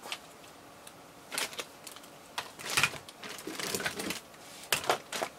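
Plastic action figures clacking and rustling as they are handled and set down in a pile, with a few sharp knocks spread over several seconds.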